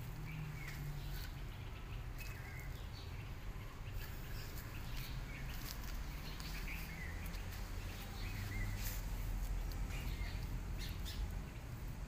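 Outdoor background with a steady low rumble and scattered faint, short high chirps.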